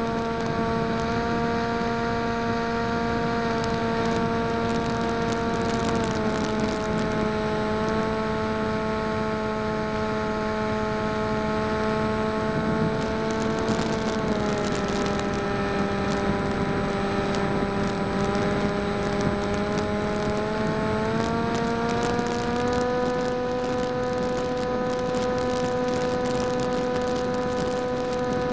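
The folding PopWing flying wing's electric motor and propeller whine steadily. The pitch steps down slightly about a fifth of the way in, drops lower around the middle and climbs back up about three-quarters through as the throttle changes.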